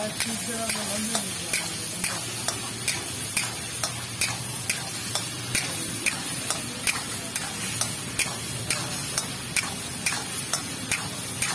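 Chicken karahi frying and sizzling in a metal karahi (wok), with a spatula knocking and scraping against the pan in a steady rhythm of about two strokes a second as the curry is stirred.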